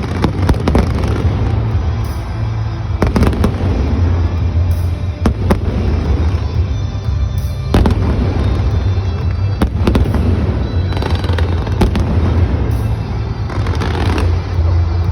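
Fireworks bursting in repeated, irregular bangs over loud music.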